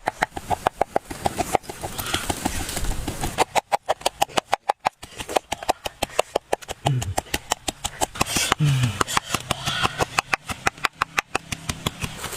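Close-up eating sounds: fast, regular mouth smacks and clicks, about five or six a second, with two short low voice sounds partway through.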